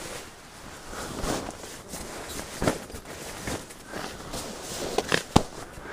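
Nylon sleeping bag rustling and swishing as it is spread out and smoothed over an inflatable sleeping pad on a tent floor, with a couple of sharp taps near the end.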